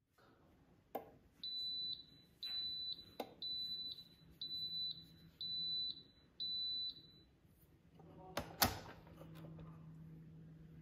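Cuisinart flip waffle maker beeping six times, about once a second, the signal that it is ready. Then two sharp clicks from its lid latch and hinge as the lid is opened.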